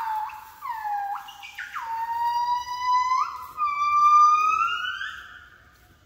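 Southern yellow-cheeked crested gibbons singing: a string of clear, whooping notes that swoop down and then climb in steps, the last one rising before the song fades out near the end.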